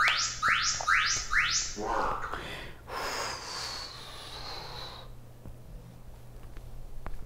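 Four quick rising electronic chirps in the first two seconds, the signal that starts a timed exercise interval, followed a second later by a long breathy exhale.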